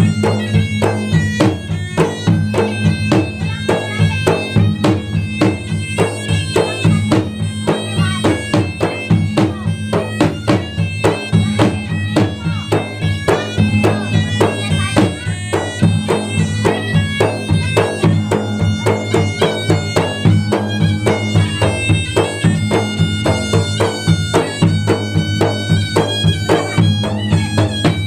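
Traditional Bugis-Makassar gendang music. Fast, dense drumming on the two-headed gendang drums and a large hanging bronze gong plays under a steady, reedy, nasal double-reed pui-pui line.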